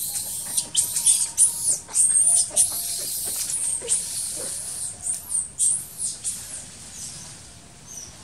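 Monkey squealing: a quick run of very high-pitched squeals, each rising and falling. They come thick at first, then fall into separate squeals that fade out near the end.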